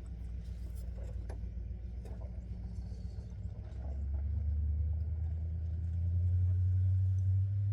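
Low, steady motor-vehicle engine rumble that grows louder about four seconds in, with a few light clicks of hand tools in the first two seconds.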